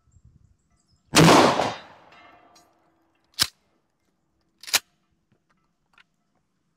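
A single blast from a Mossberg 590 A1 pump-action shotgun about a second in, its report trailing off over most of a second. Then the pump is worked: a sharp clack at about three and a half seconds and another just over a second later.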